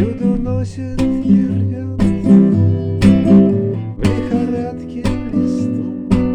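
Song with strummed acoustic guitar, beats about once a second.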